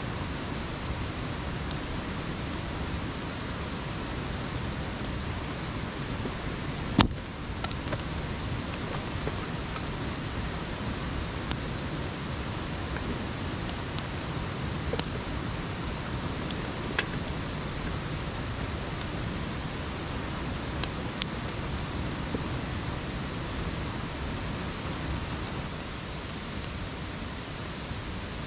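A steady rushing noise under a few sharp clicks and snaps of wood from a smoking campfire of stacked sticks; the loudest snap comes about seven seconds in.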